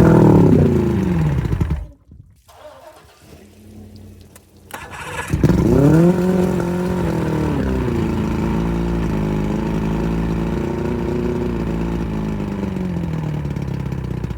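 Boat engine test-running on flushing muffs after a water-pump impeller and lower-unit seal rebuild. It revs and falls away about two seconds in, starts up again with a rev about five seconds in, then settles into a steady idle.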